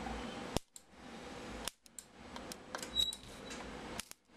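Multimeter test probe tips clicking and tapping against the component pins of a circuit board, with a short high beep about three seconds in.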